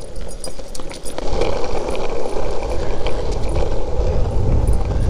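Longboard wheels rolling on asphalt as a husky tows the rider: a steady rolling rumble that grows louder about a second in as it picks up speed.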